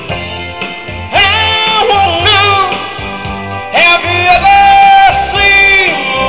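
Live band playing a pop-rock song, with a steady bass line. A bright, wavering lead melody with bent notes comes in about a second in and again near four seconds.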